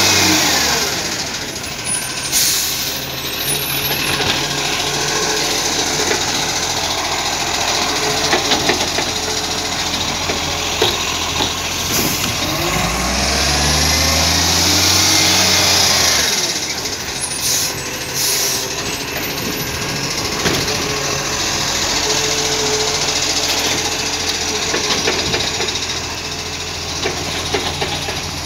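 Iveco ACCO garbage truck's diesel engine running, its revs rising and falling near the start and again about halfway through as the Superior Pak S5 side-loader's hydraulics work. Several sharp bangs of the bin and arm hardware, and a spell of hiss about halfway through.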